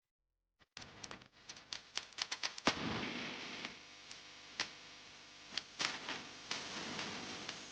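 A string of irregular sharp clicks and light knocks, coming thick and fast for the first couple of seconds after a brief silence, then spaced out, over a faint steady hiss.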